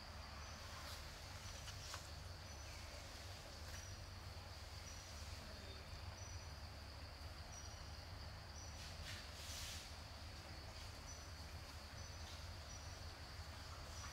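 Insects chirring faintly and steadily: a high, even drone with short chirps repeating above it about once a second, over low outdoor background rumble. A brief soft hiss comes about nine seconds in.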